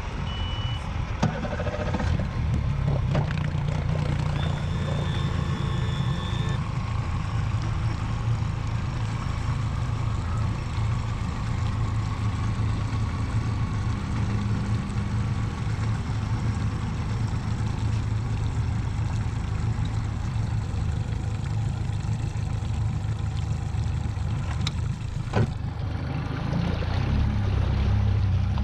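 An engine running steadily at an even speed, with a single sharp knock near the end.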